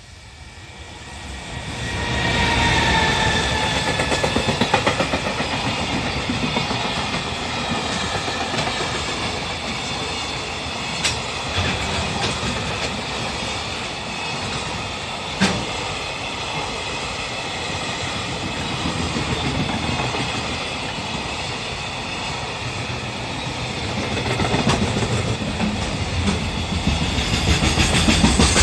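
Freight train hauled by an EF210 electric locomotive passing close by. It arrives about two seconds in with a brief falling whine, then a long line of freight wagons goes by with a steady rumble and clacking of wheels over the rails. Two short sharp knocks come partway through.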